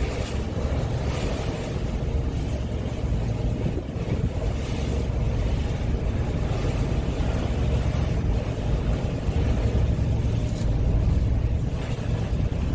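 Steady wind noise buffeting the microphone on the deck of a ro-ro ferry under way, over a low continuous rumble of the ship and the sea, swelling briefly a few times.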